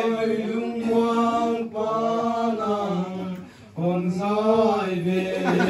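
A man's voice chanting in long, held notes, each phrase stepping down in pitch at its end, with a short breath pause about three and a half seconds in.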